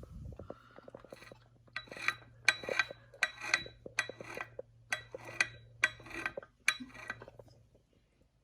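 Metal parts clinking about ten times in a row, each strike ringing briefly, over a low steady hum.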